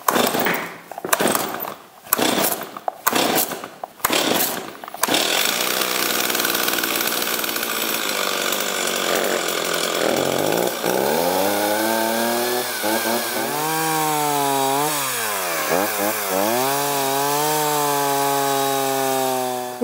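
Stihl 026 two-stroke chainsaw pull-started with several quick tugs of the starter cord, catching about five seconds in. It then runs with its engine speed rising and falling, the pitch dipping sharply a couple of times as it is run through a log near the end. It is a test run after repair: the saw runs again, though the owner finds its carburetor needs adjusting.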